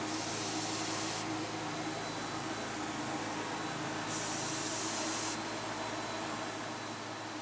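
Apollo 7700 HVLP spray gun hissing in two short bursts of about a second each, one at the start and one about four seconds in, as the trigger is pulled for test sprays. Under them the turbine runs at half speed with a steady hum.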